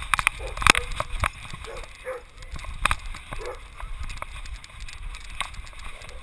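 Sharp knocks and rubbing on a camera strapped to a dog's back as the dog moves about, with a few short dog barks in between.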